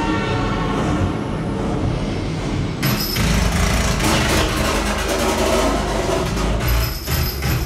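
Action-movie vehicle chase soundtrack played back through home theater speakers and subwoofers: engines and road noise with heavy deep bass. The sound thickens abruptly about three seconds in.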